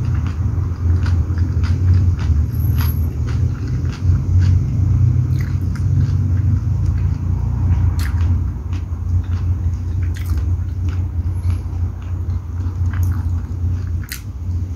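A person chewing chicken liver and gizzard adobo with rice close to the microphone, with many small wet mouth and finger clicks as food is taken by hand. A steady low rumble runs underneath.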